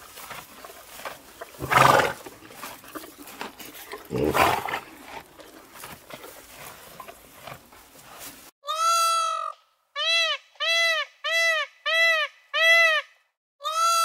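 Animal calls: two loud, rough calls a couple of seconds apart over a hissy background. Then, from about two-thirds of the way in, a run of about six short, clear, high calls, each rising and falling in pitch.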